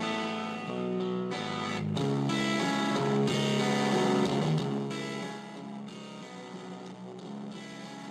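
Electric guitar played through a Ganesha distortion pedal, running through a series of distorted chords. From about five seconds in it drops to a quieter, held passage.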